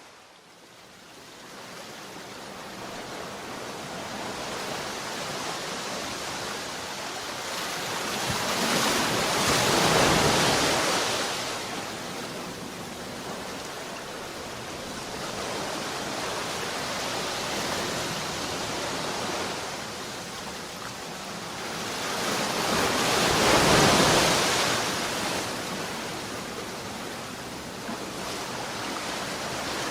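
Sea waves: a steady surf wash that rises in over the first few seconds, then swells loudest twice as bigger waves break, about a third of the way in and again past three-quarters.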